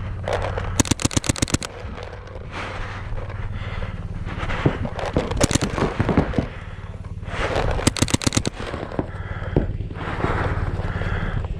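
WGP Prostock mechanical paintball marker firing two quick strings of about eight to ten shots, about a second in and again about eight seconds in, with a few single shots in between. Hard, wheezing breathing is heard between the strings.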